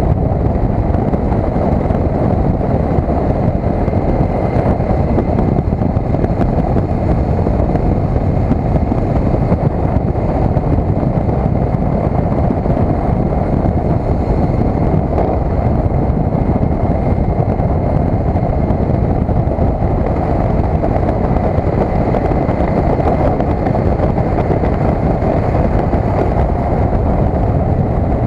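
Loud, steady wind noise buffeting the built-in microphone of a cheap helmet-mounted action camera on a motorcycle at road speed, with the 2012 KTM 990 SMT's engine running beneath it.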